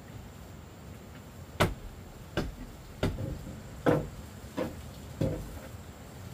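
Six sharp blows of a tool striking wood, evenly spaced about two-thirds of a second apart, starting about one and a half seconds in.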